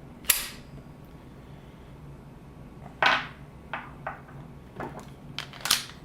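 Sharp metallic clacks and clicks from handling a just-unloaded Taurus TCP .380 pocket pistol: one near the start, then a run of six more from about three seconds in.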